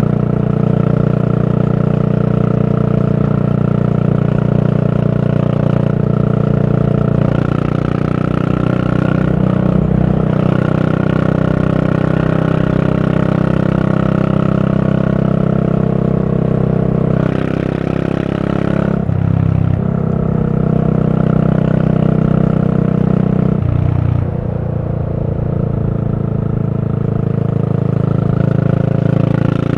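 Yamaha SR400's single-cylinder four-stroke engine, fitted with a Goods tapered cone slip-on muffler, running under way with a steady exhaust note that dips briefly and picks up again a few times.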